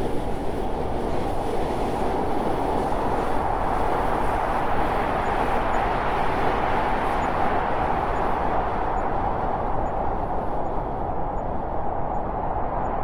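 Steady rumble of a train riding on the rails, an even noise with no distinct clicks, its high hiss thinning out over the last few seconds.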